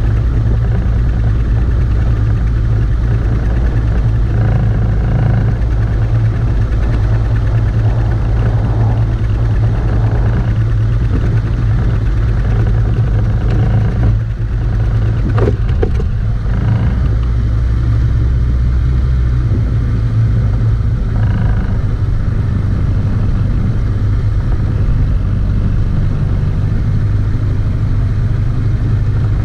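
Outboard motor on a small aluminium-and-fibreglass skiff running steadily under way, a constant low hum with water and wind noise over it. About two-thirds of the way through the deepest part of the hum drops away as the boat slows.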